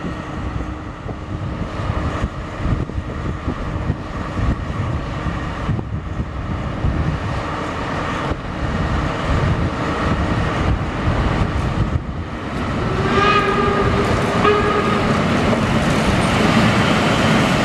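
DR class 228 (ex-V 180) diesel-hydraulic locomotive running slowly into the station with a train of old coaches. Its low rumble grows louder as it approaches. About 13 seconds in, a horn sounds for around two seconds.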